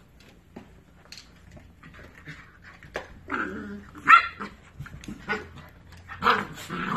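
A puppy and an adult dog play-fighting: growls and barks, the loudest a sharp bark about four seconds in and another burst of growling and barking near the end, with light clicks and scuffles between.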